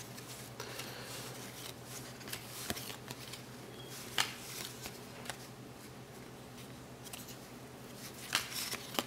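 Basketball trading cards being flipped through by hand, soft slides and flicks of card stock, the sharpest at about four seconds in and twice near the end. A low steady hum runs underneath.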